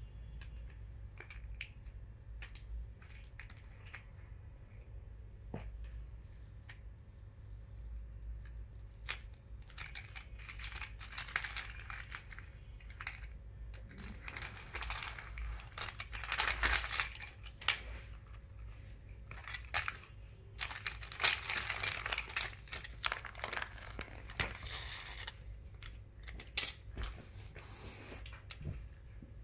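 Small toy cars clicking and clattering against one another as they are lined up and pushed by hand, with scattered clicks at first and louder bursts of rattling and scraping in the second half.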